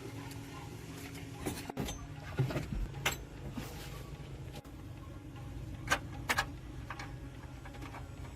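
Metal tools and parts clinking and knocking a few times during engine repair work, over a steady low hum.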